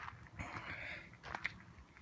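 Hiker's footsteps on a gritty dirt and sandstone trail: two steps about a second and a half apart, with a longer scraping sound between them.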